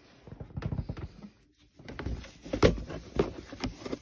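A plastic storage drawer being handled: scattered plastic knocks and scrapes, with a brief lull about a second and a half in.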